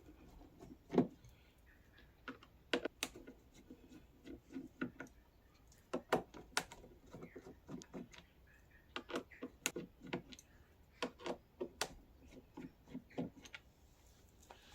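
Screwdriver taking screws out of the plastic front axle mounting of a 12V kids' ride-on quad: a run of irregular light clicks and knocks.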